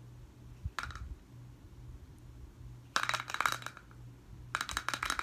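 Handling of a vinyl Funko Pop figure and its packaging: a single click about a second in, then two short bursts of rapid clattering clicks, each lasting about a second.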